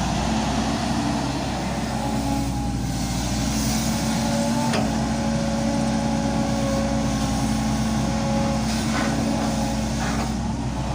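Volvo excavator's diesel engine running steadily while working, with a few light knocks about halfway through and near the end.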